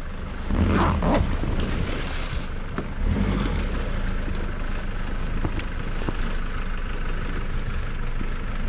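Off-road vehicle's engine running steadily, briefly louder about a second in.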